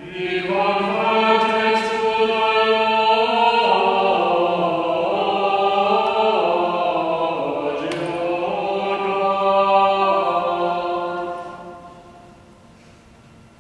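Several voices singing a slow chant-like lament in long held notes over a steady low held note, the upper voices moving to new pitches every few seconds. The singing fades out about twelve seconds in.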